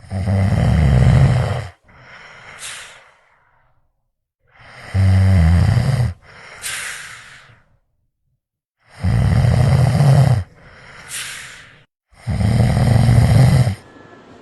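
A person snoring: four loud rasping snores on the in-breath, each followed by a quieter out-breath that ends in a rising whistle.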